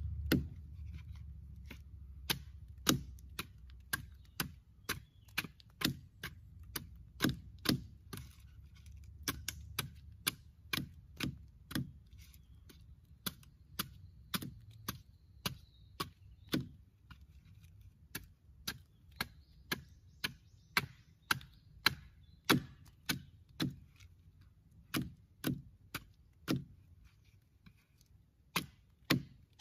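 A short chopping blade striking a wooden branch in a steady series of sharp, chopping cuts, about one to two a second.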